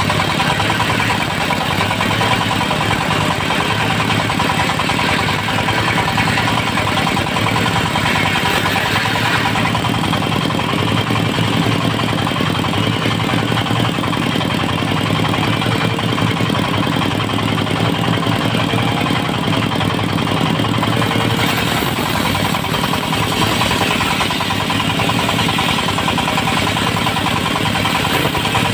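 Dongfeng diesel engine running steadily, driving a portable circular-saw mill. The sound shifts in character about a third of the way in and again about two-thirds through.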